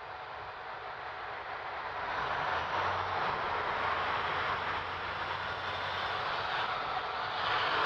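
A car driving past on the road: steady tyre and engine noise that grows louder about two seconds in.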